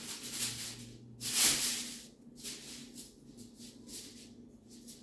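A hand rubbing and crumbling a flour, butter and oil mixture in a bowl: dry, gritty rustling, loudest about a second and a half in, then softer short rustles a few times a second.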